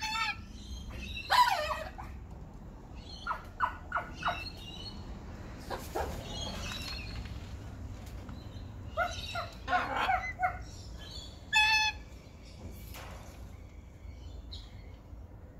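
Parrot calls: short chirps and squawks in small clusters through the first twelve seconds, with one longer, steadier call about twelve seconds in.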